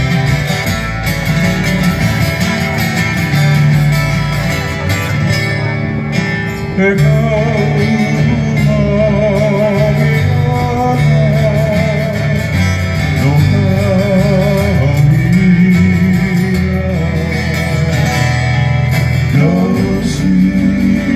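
Live Hawaiian trio music: acoustic guitars strummed over an electric bass, playing alone for the first several seconds. Then, about seven seconds in, male vocals with a wavering vibrato come in over the guitars and carry on to the end.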